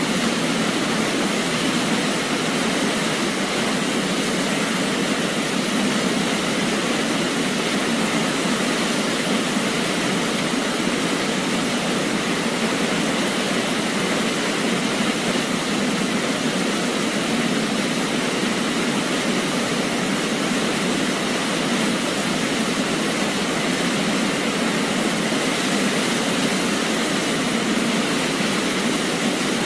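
Waterfall, falling water rushing steadily and evenly, with no changes and little deep bass.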